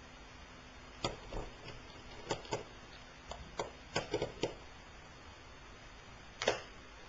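Small sharp clicks and taps of a screwdriver working screws in the plastic underside of an HP notebook: a quick run of them between about one and four and a half seconds in, then a single louder tap near the end.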